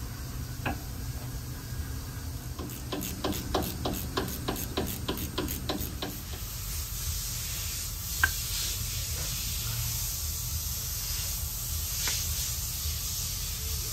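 Hand work on a spray-foam proportioner's high-pressure pump: a run of quick, even clicks, about three or four a second for some three seconds. Then a steady hiss sets in, with one sharp click a couple of seconds after it starts.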